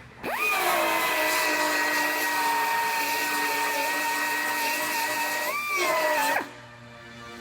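High-speed power tool whining: it spins up quickly, holds a steady high pitch that settles slightly lower, rises briefly near the end, then shuts off about six seconds in.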